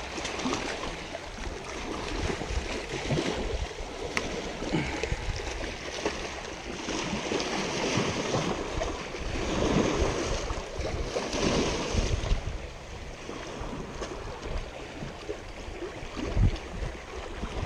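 Small waves washing and splashing against the rocks of a stony shoreline, swelling several times, with wind gusting over the microphone.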